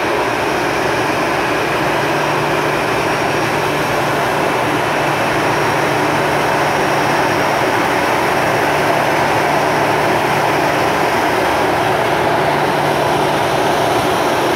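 Boeing 737-800's CFM56-7B turbofan engines running at low taxi power as the airliner rolls past, a loud steady rushing noise. A low steady hum joins about two seconds in.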